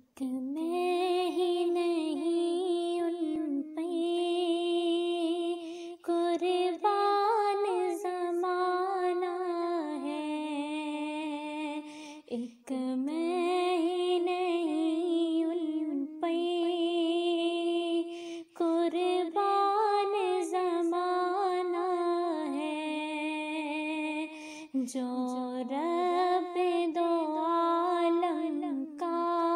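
A female voice singing a naat without accompaniment, in long, held phrases with a wavering pitch, broken by short pauses for breath.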